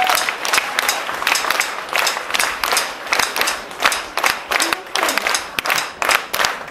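Audience applauding after the song ends, with many separate hand claps heard distinctly and irregularly.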